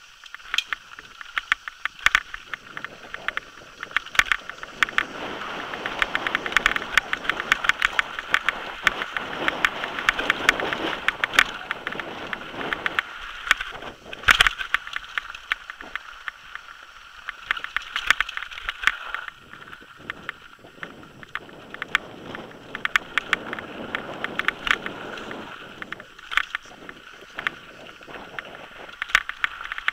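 Downhill mountain bike descending a rocky gravel trail at speed: a constant rattle and clatter of the bike over stones, with a rush of wind and tyre noise that swells and fades. A single sharp, loud knock comes about 14 seconds in.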